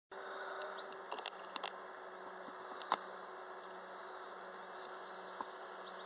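Steady low hum at two pitches, one an octave above the other, over a soft hiss. A few faint sharp clicks sound about a second in and near 3 s, along with some short high chirps.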